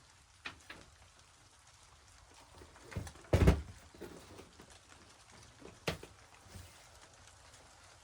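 A few scattered light clicks and knocks over a quiet background, with one louder, heavier thump about three and a half seconds in.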